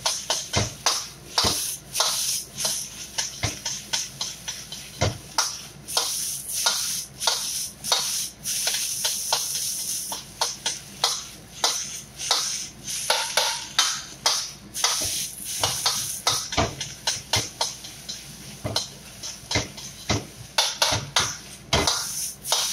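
Metal wok spatula scraping and clanking against a stainless steel wok as fried rice is stir-fried and tossed, in irregular strokes about two or three a second, over a steady sizzle of the rice frying.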